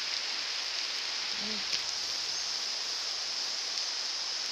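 Steady hiss of rain falling on the surrounding forest foliage.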